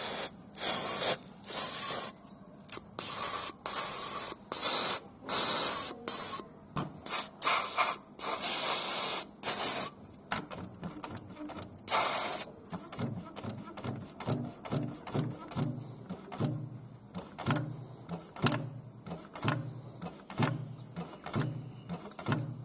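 An aerosol can of lubricant is sprayed in a dozen or more short hissing bursts onto a Honda Accord's automatic belt tensioner, whose spring is sticking and possibly rusted. After that, from about thirteen seconds in, comes a softer, even rhythm of low clunks, about one to two a second, as the tensioner arm is worked back and forth to let the lubricant in.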